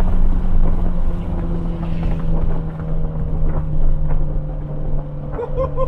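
Mitsubishi Lancer Evolution X's turbocharged 2.0-litre four-cylinder running loud through a straight-pipe exhaust while driving, a deep steady drone whose pitch slowly falls.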